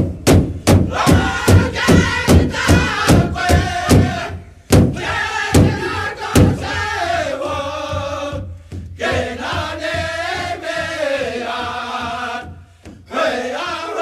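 Powwow drum and group of singers: the drum is struck steadily about two to three times a second under chanted singing. Around four seconds in it slows to three widely spaced beats, then the voices carry on without the drum.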